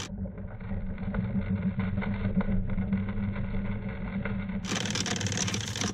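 Sailboat's inboard engine running steadily at low revs in slow reverse while anchor chain is paid out, a steady drone. Most of the time it is muffled, with no high end, and it becomes clearer and fuller about four and a half seconds in.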